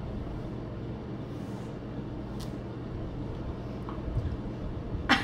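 A steady low rumble with a faint hum under it, a few faint ticks, and one sharp click at the very end.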